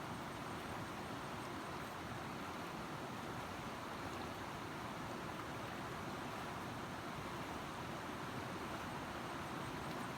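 Steady rush of flowing river water, an even hiss without distinct splashes or changes.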